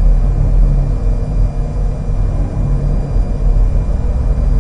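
Steady low rumble of a continuous background drone, with faint steady high-pitched tones over it.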